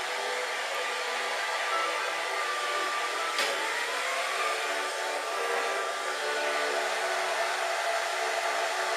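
Handheld hair dryer blowing steadily while drying a wet dog's fur, with one brief click about three and a half seconds in.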